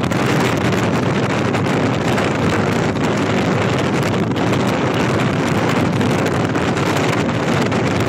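Wind rushing over the microphone from a moving vehicle, a loud steady rush mixed with road noise.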